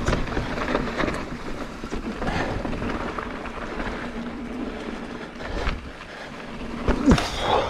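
29er mountain bike descending a rough, rutted dirt singletrack: tyres rolling over dirt and rocks and the bike rattling, with many small knocks throughout. A brief falling squeal sounds about seven seconds in.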